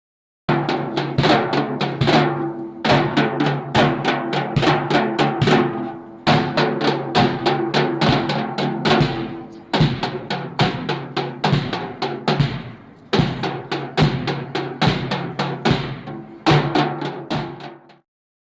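Drum music: rapid drum strokes in phrases of about three seconds, each starting loud and fading, over a steady low tone. It cuts off near the end.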